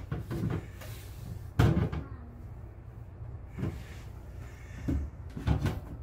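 Plastic pet-door flap knocking and clacking in its frame several times, a second or two apart, as a baby pushes at it and through it.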